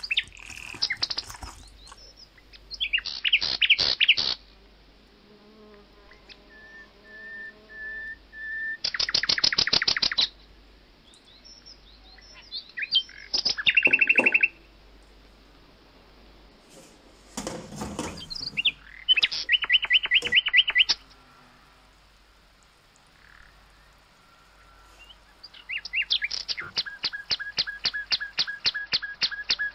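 A small bird singing in bursts of rapid, trilled chirps, each run lasting a second or two with pauses between, and a longer run of fast trills near the end.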